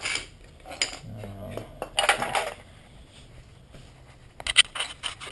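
Steel sockets and hand tools clinking and rattling in a metal tool tray as a hand rummages through them, in short bursts about two seconds in and again near the end.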